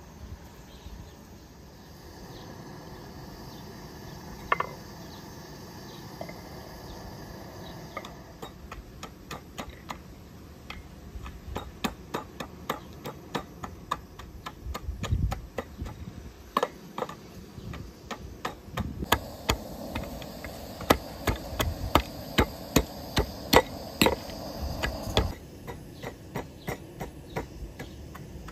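Repeated sharp knocks and clinks against a metal plate, about one or two a second, getting louder for a while past the middle.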